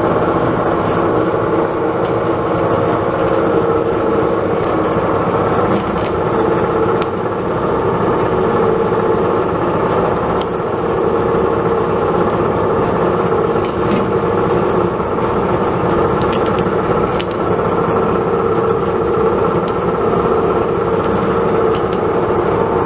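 Coconut shell-removing machine running steadily, its single-blade cutter gouging the shell off a coconut pressed into its slot, with scattered sharp clicks and knocks from the shell.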